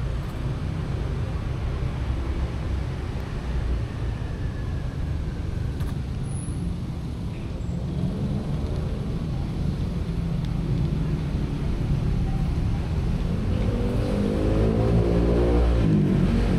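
A vehicle engine running with a steady low rumble. About fourteen seconds in its pitch rises and then falls, as with revving, and it grows a little louder toward the end.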